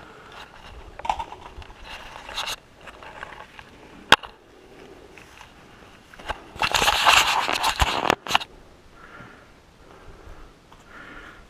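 Irregular rustling and scraping noises, with one sharp click about four seconds in and a louder rush of noise lasting nearly two seconds midway through.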